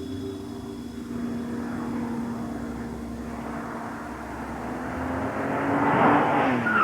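A fast car's engine approaching, growing steadily louder, its pitch dropping as it sweeps past near the end.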